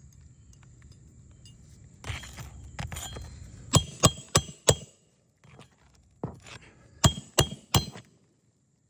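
Hammer driving roofing nails through asphalt shingles: some scraping and rustling, then two quick runs of about four sharp, ringing metal strikes each.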